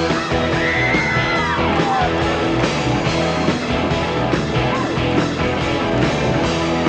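Live rock band playing, with electric guitars and drums, loud and steady; a high note bends up and back down about a second in.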